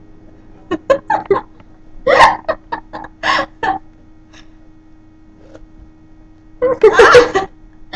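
People giggling in short bursts, with a longer burst of laughter near the end.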